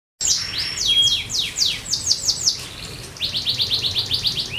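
Young canary singing: a run of quick falling notes, then a fast even trill of repeated short notes near the end.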